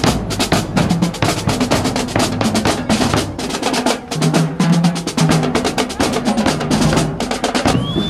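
Marching drumline playing a fast cadence: rapid snare drum strokes and rolls over tuned bass drum hits. A brief high tone sounds near the end.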